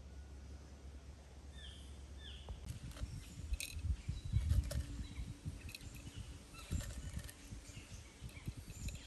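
Light clicks and dull bumps of hand-handling as small rusty cast-iron prills are pinched out of a clay pot and dropped into a small stone dish on a rock, loudest about four to five seconds in. Two short falling bird chirps come about two seconds in.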